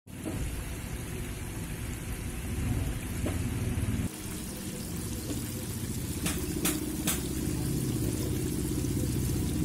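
Battered chicken deep-frying in a steel tray of hot oil: a steady bubbling rumble, with a few sharp clicks about six to seven seconds in as metal tongs knock against the tray.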